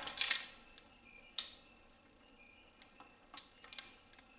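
Light clicks and taps of a small handheld flashlight being handled while its batteries are worked at. There is a small cluster of clicks at the start and one sharper click about a second and a half in.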